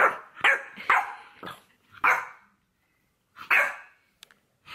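A small dog barking: five short, sharp barks in quick succession, then one more after a pause of over a second.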